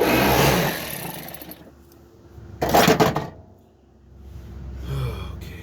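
Cordless electric ratchet running in two short bursts on a stuck alternator mounting bolt that will not come out.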